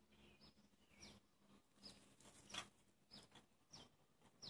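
Faint bird chirps: short, high notes that fall in pitch, repeating about every half second to a second, the loudest about two and a half seconds in.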